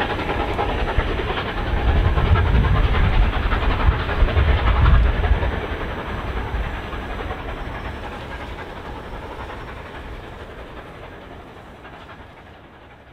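Steam-hauled passenger train drawing away behind a Bulleid 'West Country' Pacific: the coaches rumble and clatter past on the rails, loudest in the first five seconds, then fade steadily as the train departs.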